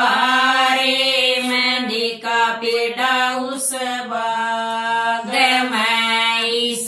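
A group of women singing a Haryanvi folk wedding song in unison, a chant-like devotional melody with long drawn-out notes.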